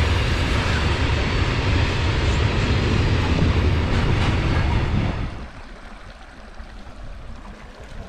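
Freight train wagons rolling past on the rails: a loud, steady rumble that drops away sharply about five seconds in. After that, the quieter, even rush of a shallow stream.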